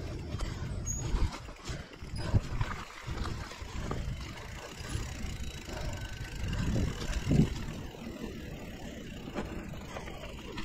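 2017 Liv Pique 3 mountain bike riding over dirt singletrack: a steady rumble of tyres and rattling bike, with uneven jolts. Sharper knocks come a little over two seconds in and again about seven seconds in.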